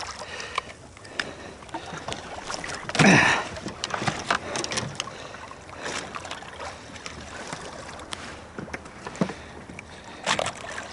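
Scattered knocks and clatter as a red snapper is lifted aboard a small boat and handled on deck with a plastic fish gripper, over a steady wash of water noise. A brief louder rush comes about three seconds in.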